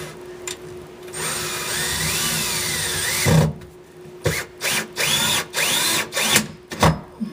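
Power drill driving large SPAX screws: one motor run of about two seconds with its whine rising and falling, a sharp knock, then several short trigger bursts as the screw is run home.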